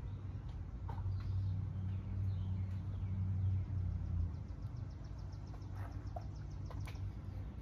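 Outdoor ambience: faint bird chirps and a brief quick trill over a low steady hum that swells for a few seconds, with a few small clicks.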